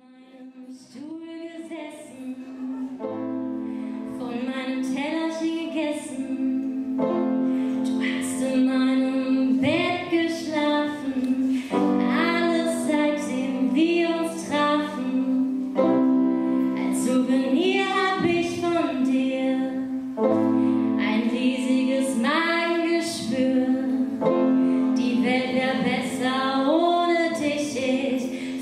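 A female voice singing a melody over sustained keyboard chords. The music fades in over the first few seconds and then holds steady.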